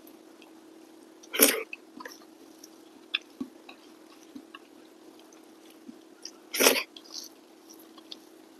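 Eating sounds of a person eating rice by hand: faint clicks of chewing and mouth noises. Two short, loud, breathy bursts come about five seconds apart, over a steady low hum.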